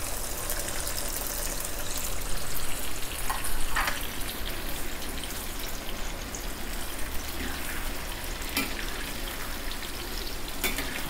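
Hot oil sizzling steadily in a metal wok as sliced vegetables are added to frying turmeric beef and stirred, with a few brief scrapes and knocks of the metal spatula against the pan.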